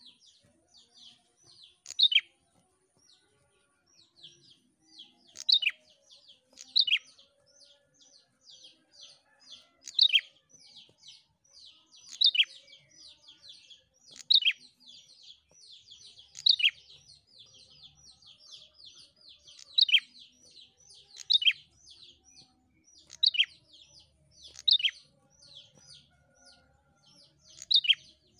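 Prenjak singing: a fast, unbroken run of high chirps with a louder, sharp call breaking in about every two seconds.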